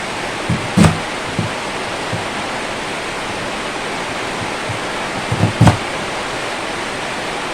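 Two dull knocks, about a second in and again near the end, over a steady hiss: a knife chopping ginger and galangal rhizome on a cutting board.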